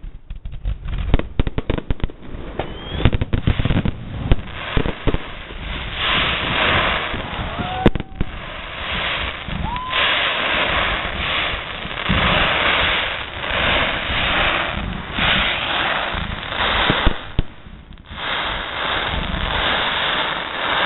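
Fireworks going off: a rapid run of sharp cracks and bangs, a few short whistles, then from about six seconds in a long, dense crackling that breaks off briefly near the end.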